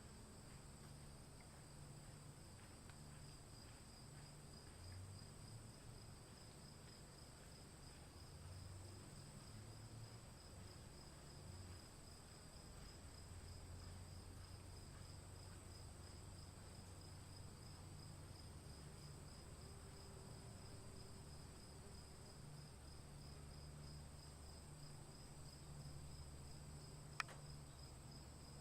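Faint crickets and other insects chirping in a steady high trill, over a low, uneven rumble. A single sharp click about a second before the end.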